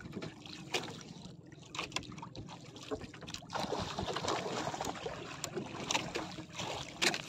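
Sea water lapping against a small outrigger boat's hull, with wind on the microphone. A low steady hum runs underneath, and a few sharp knocks stand out.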